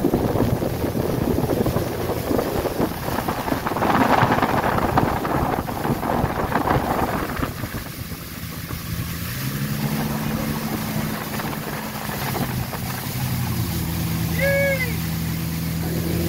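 Motorboat under way towing a tube: wind buffets the microphone over rushing wake water. About ten seconds in, the engine's steady hum comes through clearly, briefly shifting in pitch before settling. A short high-pitched cry sounds near the end.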